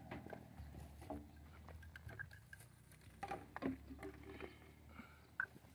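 Faint, scattered light taps and clicks of PVC drain fittings and an open can of PVC solvent cement being handled while glue is applied to a joint.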